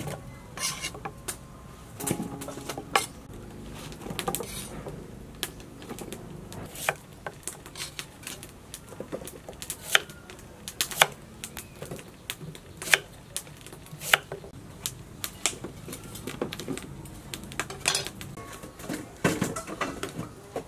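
Cleaver chopping peeled taro and carrot on a round wooden chopping board: sharp knocks of the blade against the wood, coming irregularly, about one or two a second.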